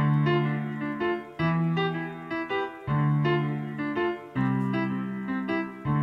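Background keyboard music: low sustained chords changing about every one and a half seconds, with shorter notes played above them.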